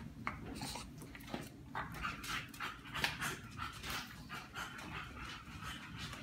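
Dog panting in quick, uneven breaths, about three a second.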